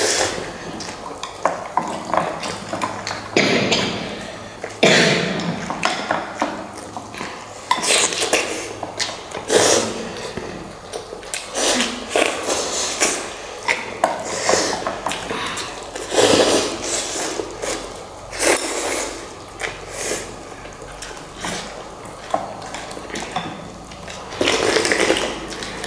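Utensils clinking and scraping against bowls as instant noodles are eaten in a hurry, with irregular eating noises.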